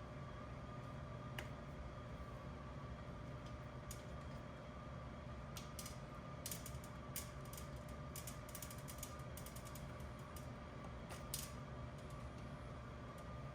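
Scattered light clicks and taps of hand work on motorcycle wiring and small parts, most frequent in the middle, over a steady hum with a faint high whine.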